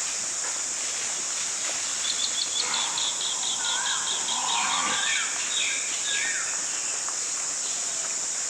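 A steady high insect drone with birds calling over it. A rapid chattering trill runs at about eight notes a second for roughly two seconds, and several short whistled notes bend up and down.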